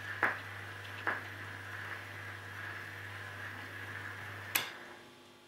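Surface hiss of a shellac record under the steel-needle magnetic pickup of a 1929 Dr. Max Levy Elgraphon turntable, with a low steady hum and two sharp clicks in the first second. Just over four seconds in, a louder click comes, the hum stops and the hiss dies away.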